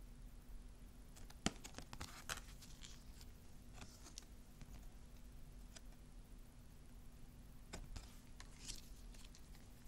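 Faint handling of glossy oracle cards: a sharp tap about a second and a half in, then soft slides and clicks as a card is moved from the back of the deck to the front, with more light card sounds near the end. A faint steady hum runs underneath.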